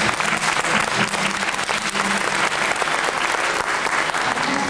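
Audience applauding steadily with dense, even clapping.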